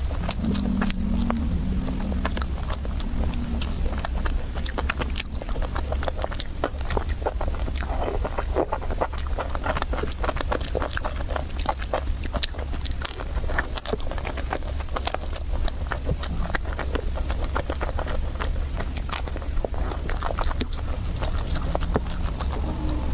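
Close-miked eating sounds: irregular wet smacks, clicks and chewing from a person eating, over a steady low hum.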